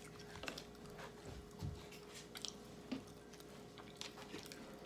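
Soft, close-miked chewing with scattered small mouth clicks.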